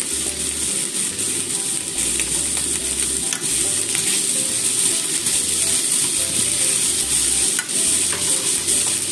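Sliced cabbage, onion and ham sizzling as they stir-fry in a frying pan, with a steady hiss. Chopsticks stir and toss the vegetables, giving a few light ticks against the pan.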